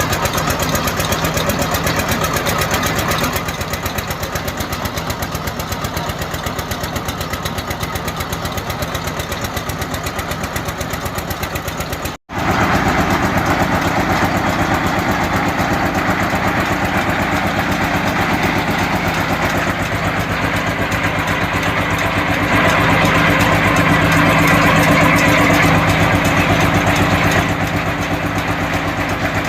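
Engine of a borewell drilling machine running steadily, breaking off for an instant about twelve seconds in, and growing louder for about five seconds later on.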